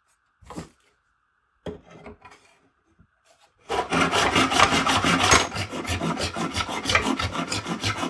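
A few light handling knocks, then about three and a half seconds in a handsaw starts cutting through an acrylic pen blank in quick, even back-and-forth strokes.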